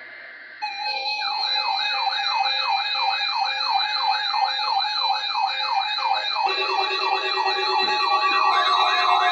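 Electronic alert sirens of NOAA weather radio receivers going off. A warbling siren sweeps up about four times a second over several steady tones, starting about half a second in, and a lower tone joins about six and a half seconds in.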